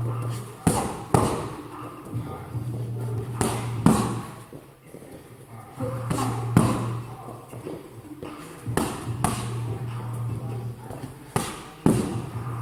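Punches or kicks smacking into training pads, in short combinations of one or two hard strikes every couple of seconds.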